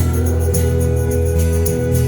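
Live acoustic band music: guitar chords held over a steady rhythm of light high percussion, with no singing at this moment.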